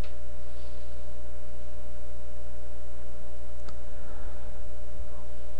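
Steady low electrical hum with a few faint steady higher tones over it, the mains hum of a computer microphone setup. Two sharp mouse clicks break through, one at the start and one a little under four seconds in.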